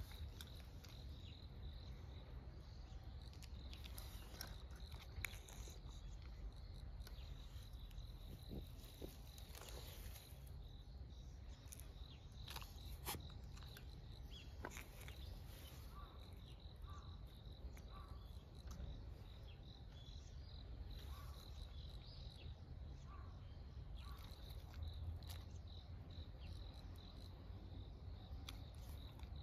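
Crickets chirring steadily in the grass, faint and high-pitched, with scattered light rustles and crackles as a small dog sniffs through grass and dry leaves, over a low steady rumble.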